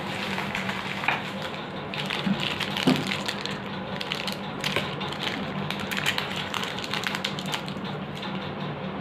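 Clear plastic packets of new ball bearings crinkling and crackling as they are handled and opened, with small irregular clicks, over a steady low hum.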